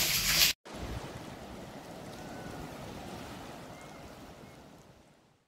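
A loud hiss that cuts off suddenly about half a second in, followed by a steady rush of water, like surf or a stream, that slowly fades away.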